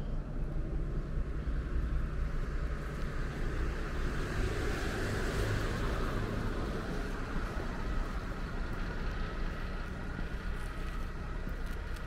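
Road traffic: a vehicle passes, swelling to its loudest about midway and fading away, over a steady low rumble.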